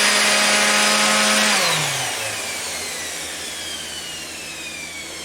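Mac Allister SOS300 300 W corded random orbit sander running at full speed with a steady whine. About a second and a half in it is switched off, and the whine falls in pitch and fades as the pad spins down.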